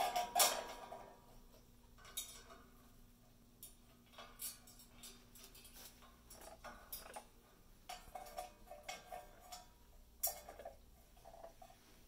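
Amazon parrot rattling a stainless steel food cup in its holder with its beak: metallic clattering and ringing, loudest in the first second. Scattered clicks and taps follow as it climbs on the perch and ladder, with another bout of ringing rattles near the end.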